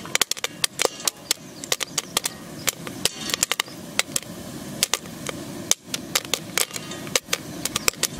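Popcorn kernels popping on a hot metal kettle: irregular sharp pops, several a second, over a steady hiss.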